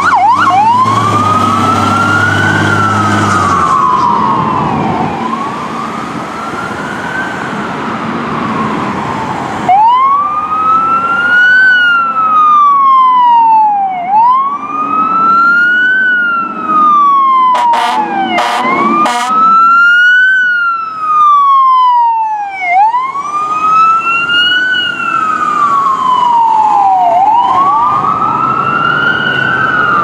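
Fire trucks' electronic sirens switch from a fast yelp to a slow wail at the start, then rise and fall about every four and a half seconds, with two sirens overlapping at times. Short air horn blasts come about two-thirds of the way through.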